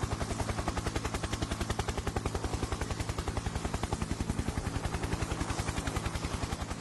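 Logo-intro sound effect: a rapid, even pulsing rattle over a low hum, starting to fade near the end.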